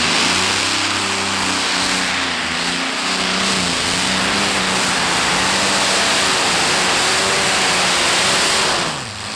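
Heavy modified pulling tractor's engine running flat out under load during a pull. It is a loud, steady drone under a thick hiss, and it drops off sharply about nine seconds in as the throttle comes off.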